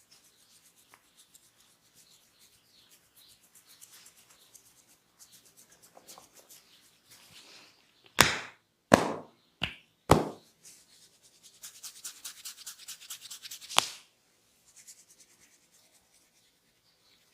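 Hands rubbing and scratching skin during a barber's massage, then four loud, sharp smacks of a hand slapping, about half a second to a second apart. A fast run of crackling scratches follows and ends in one sharp click.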